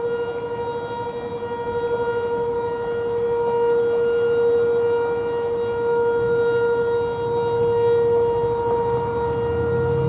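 ASC T-121 outdoor warning siren sounding its steady Alert tone during a test: one held pitch that swells and eases slowly in loudness.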